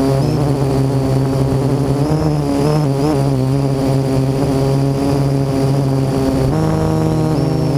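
Parrot AR.Drone quadcopter's motors and propellers whining steadily right next to the on-board camera, the pitch stepping up and down a few times as the motors change speed, most clearly near the end.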